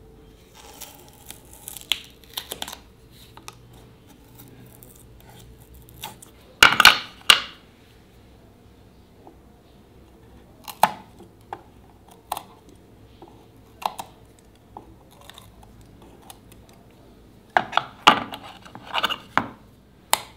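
Hand-tool work at a workbench: scattered sharp clicks and taps of tools and parts being handled, with a louder burst of clattering about seven seconds in and another near the end.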